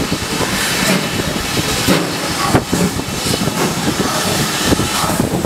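GWR Prairie tank steam locomotive, No. 5199, moving slowly along the platform with its coaches, giving off a steady hiss of steam with irregular knocks.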